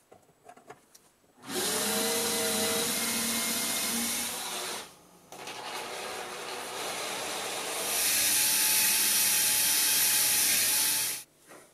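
Cordless drill boring an angled hole through thin plywood with a twist bit: the motor spins up about a second and a half in, stops briefly near the middle, then runs again, louder toward the end, before cutting off.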